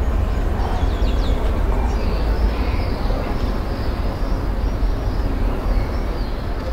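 Outdoor city ambience: a steady low rumble under a hiss, with faint high bird chirps, a few about a second in and more later.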